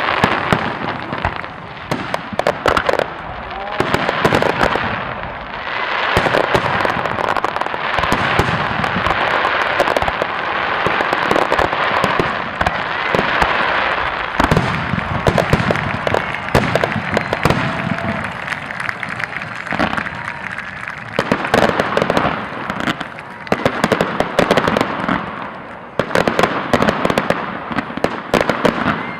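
Fireworks going off, many sharp bangs and crackles in quick succession.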